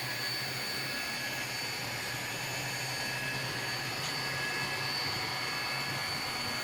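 N-scale model locomotive running steadily on tight Kato Unitrack curves. Its small motor gives a steady whine over an even hiss of wheels on the track.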